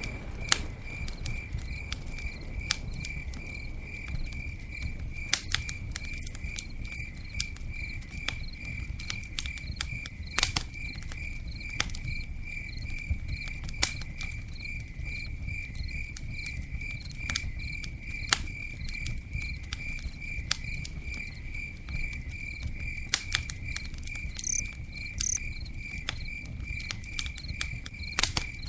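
Campfire crackling, with sharp pops at irregular moments over a low steady rumble, while a cricket chirps in an even, unbroken rhythm.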